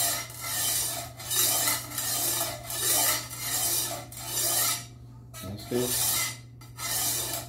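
A coarse 120-grit diamond sharpening plate on a guided knife-sharpening jig rasps back and forth across the steel edge of a fish cleaver, about two strokes a second, with a short pause around the middle. These are sweeping strokes that even out the edge at the rough-grit stage.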